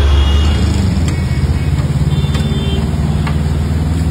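A steady low rumble with an engine-like hum, with a few faint clicks over it.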